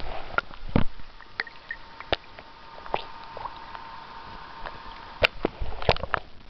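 Water sloshing and gurgling around a camera dipped in and out of the sea beside a kayak, with scattered sharp clicks and knocks, the loudest a little past five seconds in and again around six seconds.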